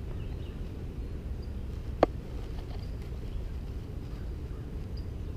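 Steady low outdoor rumble, with one sharp click about two seconds in.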